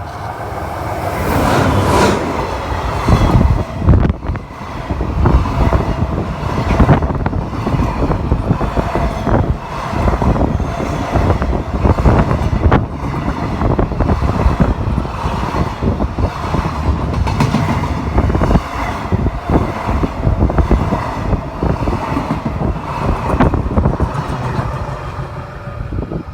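Freight train passing close by, its wagons' wheels clattering in a quick repeated rhythm over the rail joints. It builds up loud in the first couple of seconds and eases off near the end.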